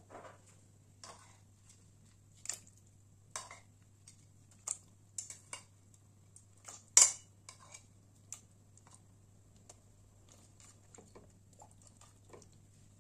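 Irregular light clinks and knocks against a metal cooking pot as ingredients are handled in it, the loudest a sharp clank about seven seconds in, over a low steady hum.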